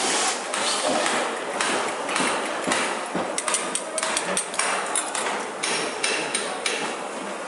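Eggs being beaten with chopsticks in a small steel bowl: quick clicks of the chopsticks against the metal, coming about four to five a second at their fastest and stopping shortly before the end.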